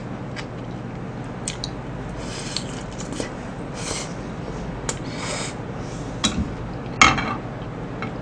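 Eating at close range: a mouthful of fried cutlet chewed, with small mouth noises and wooden chopsticks clicking against a plastic food tray. About seven seconds in comes a louder clatter as the chopsticks are set down on the tray.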